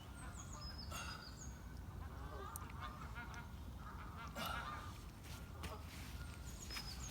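Geese honking in short repeated calls, with small birds chirping high above them and a steady low wind rumble.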